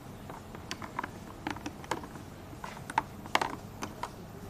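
Irregular light clicks and taps of small hard objects being handled, a few louder ones about three seconds in.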